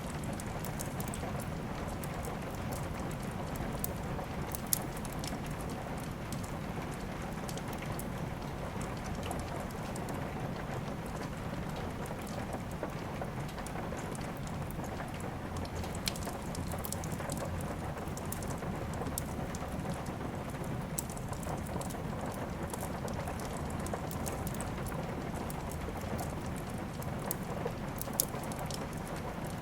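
Steady rain falling, mixed with a wood fire crackling: a dense run of small sharp clicks with a few louder pops, one about five seconds in, one in the middle and one near the end.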